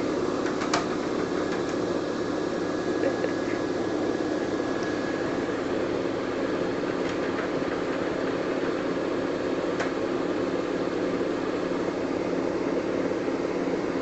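Front-loading washing machine running with a steady, even hum as its drum turns. A few light clicks now and then from the dog's claws on the glass door.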